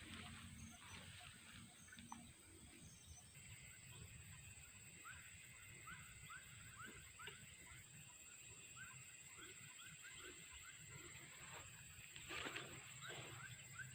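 Faint outdoor ambience: a steady high insect whine, with a run of short, quick chirping animal calls starting about five seconds in, several a second. A brief rustle comes near the end.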